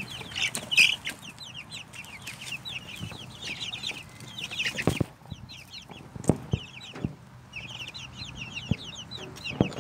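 A brooder of young chicks, about four weeks old, peeping continuously in quick, high chirps. A few sharp knocks sound over it about five, six, seven and nine seconds in.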